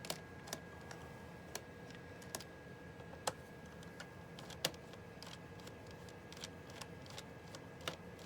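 Irregular small clicks and taps of a Torx screwdriver and fingers working on a laptop's plastic case, a click every half second or so, the sharpest about three and four and a half seconds in, over a faint steady high whine.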